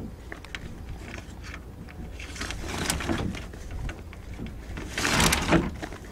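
Sail slides clicking and sliding as they are fed by hand onto a wooden boom, with the sailcloth rustling loudest in two bursts, about two and a half seconds in and again near the end. A steady low wind rumble on the microphone lies underneath.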